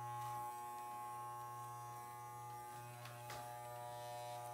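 Corded Wahl electric hair clippers buzzing steadily with a low hum as they are run along the hairline around the ear. There is a faint click about three seconds in.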